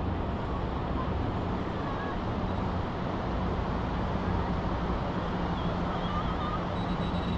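Steady wash of wind and surf on a beach, with a low steady rumble underneath and a few faint high chirps.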